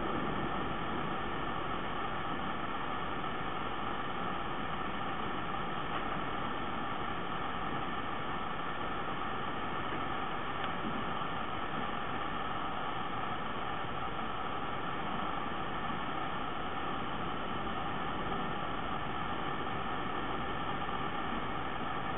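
Steady hiss of background noise with no snore, breath or gasp standing out.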